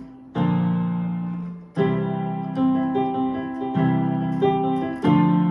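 Keyboard playing slow, sustained piano chords, a new chord struck every second or so and left to fade: the instrumental close of a gospel worship song.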